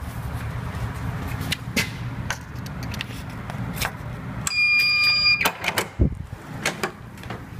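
Key-card lock on a motel room door beeping once, just under a second long, as it reads the card, then clicks and a low thump from the latch and lever handle as the door is opened. Before the beep there is a low rumble with scattered handling clicks.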